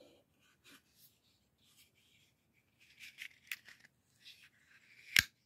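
Light handling of a Kobalt folding pocket knife: faint scrapes and rustles, then one sharp click near the end as the blade snaps open.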